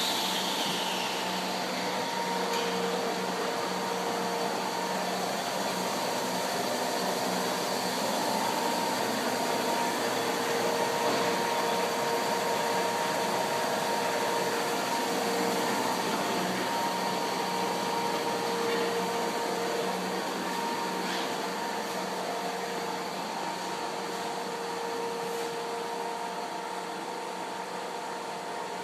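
Dean Smith and Grace Model 2112 centre lathe running with a steady mechanical hum and whine, easing slightly in level over the last part.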